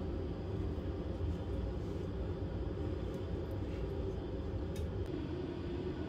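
Steady low rumbling hum with no distinct events, with a faint light tick about five seconds in.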